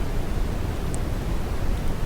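Synthetic brown noise: a steady, deep hiss weighted heavily toward the bass, with a single faint crackle about a second in.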